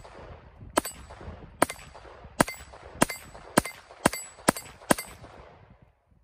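Smith & Wesson M&P22 Compact .22 LR pistol firing Remington Thunderbolt rounds: eight shots in a quickening string, each sharp crack followed by a short echo. The pistol cycles every round without a stoppage.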